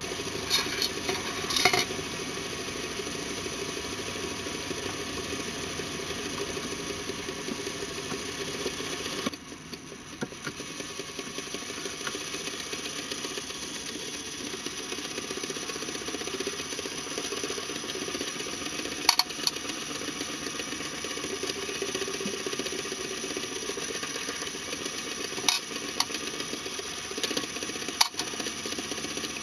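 A LEGO Technic fake inline-four engine running on a small LEGO electric motor: the motor whirs while the plastic pistons rattle steadily in their cylinders. It drops in level a little about a third of the way in, and a few sharper clicks come in the second half.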